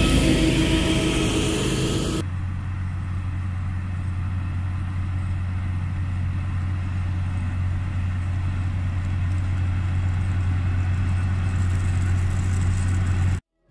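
Diesel harvest machinery running steadily. About two seconds in the sound changes abruptly from a louder, higher machine noise to a steady low engine hum, which cuts off just before the end.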